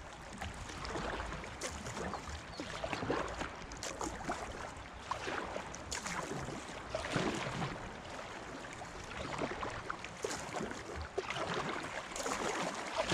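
Moving river water lapping and splashing against a kayak's hull as it drifts through a rippled, fast-flowing stretch of river, with many small irregular splashes.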